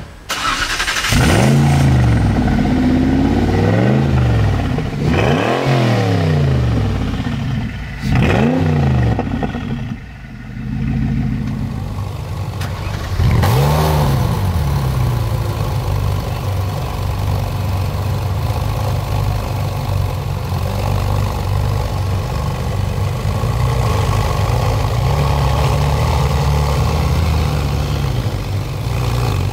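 A supercar engine starts with a loud flare and is revved in a string of quick blips, each rising and falling. About halfway through, a Ferrari 458 Speciale's V8 starts with one sharp flare and settles into a steady idle.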